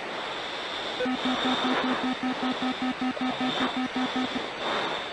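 Cockpit warning tones in a jet on final approach. About a second in, a rapid train of short, low electronic beeps starts, about five a second, and lasts about three seconds. It plays over a steady high-pitched cockpit whine and hiss.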